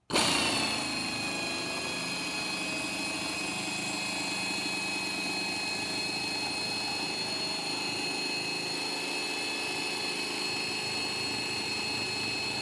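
Malco air-powered vinyl shear running as it cuts through a thin 0.030-inch Lexan polycarbonate sheet: a steady high whine over an air hiss. It starts suddenly, and the whine settles slightly lower in pitch within the first second.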